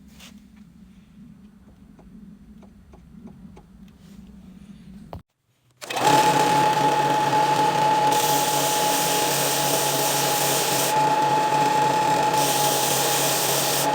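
Faint clicks over a low hum, then after a short gap an electric sander starts about six seconds in and runs steadily with a high whine. An added hiss comes and goes twice while sanding.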